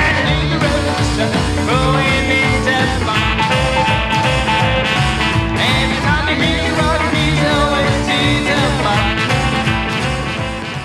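Rockabilly band music with a steady beat, beginning to fade out near the end.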